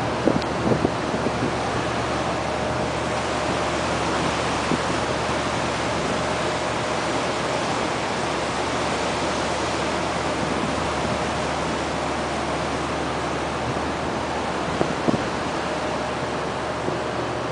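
Steady wind noise on the microphone over open sea, with a low steady hum underneath and a few faint knocks near the start and about fifteen seconds in.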